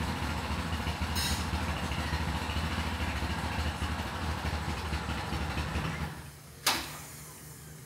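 A steady low rumble, like an engine running, that drops away about six seconds in, followed by a single sharp click.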